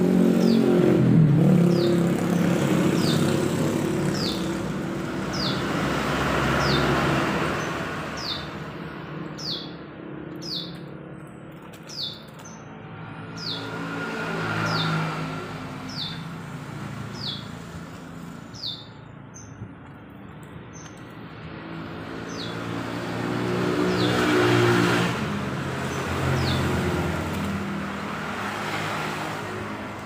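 Small caged songbird giving short, high chirps that slide downward, about one a second and very regular. Under them, motor vehicles pass, their engine sound swelling and fading several times. They are loudest near the start and again about three-quarters of the way through.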